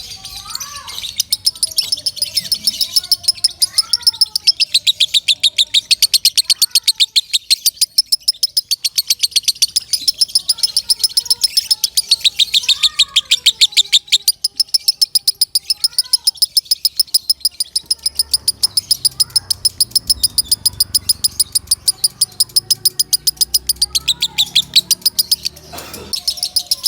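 Lovebird singing a long, fast chattering trill of rapidly repeated high notes. It breaks off briefly near the end and starts again.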